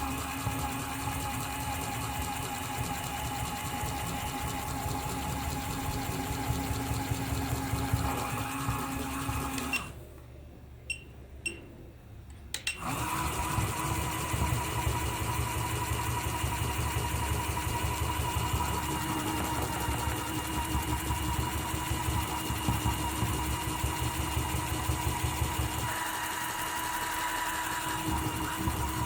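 Small electric motor running with a steady whir. It stops for about three seconds, with a couple of clicks in the gap, then starts again at a different pitch.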